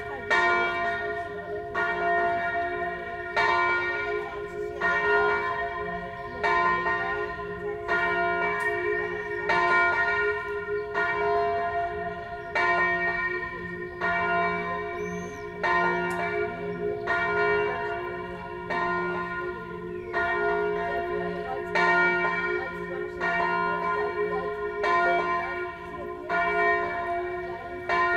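A single church bell, the middle bell (mezzana) of a six-bell ring hung for Tyrolean-style swinging, swinging full circle. Its clapper strikes about once every second and a half, each stroke ringing on into the next.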